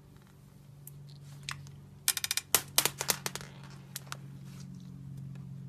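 Thick white slime topped with plastic pearl beads being pressed and broken apart by hand, giving a quick run of crisp crackles and clicks about two seconds in, with a few single clicks around it. A low steady hum sits underneath.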